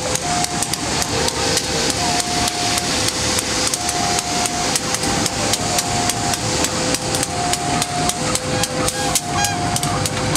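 Railway level-crossing warning: a bell struck in an even rhythm about three times a second, with a two-note electronic tone alternating beneath it.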